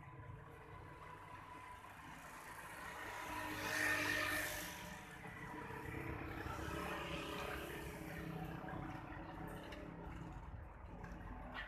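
A motor vehicle passing, growing louder to a peak about four seconds in and then fading, over a steady low rumble.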